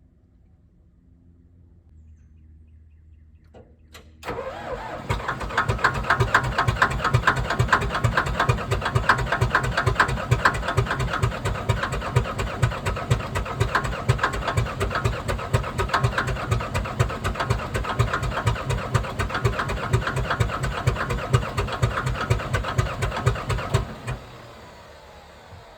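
Komatsu D57S1 track loader's diesel engine cranking on its starter, with even, rapid compression pulses for about twenty seconds. It begins with a click about four seconds in and cuts off near the end without the engine ever catching. This is a hard cold start, which the owner half suspects is down to failing glow plugs.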